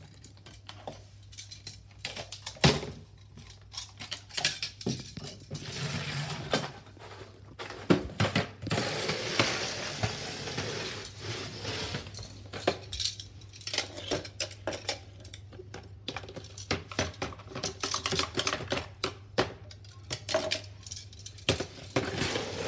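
Metal kitchen tongs clicking and clattering against small plastic toy wheelie bins and a plastic tub on a tiled floor, in irregular knocks, with a longer stretch of paper and plastic rubbish rustling around the middle.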